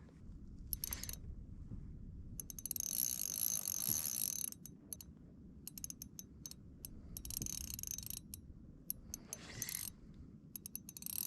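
Fishing reel ratcheting in runs of fast clicking, a second or two at a time with scattered single ticks between, as a hooked gurnard is played on light tackle.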